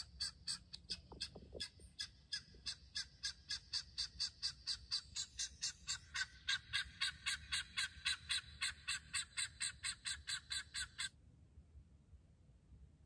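Recorded guineafowl calls played from a phone as a hunting lure: a rapid, even cackle of about five notes a second that shifts in tone about halfway through and cuts off suddenly near the end.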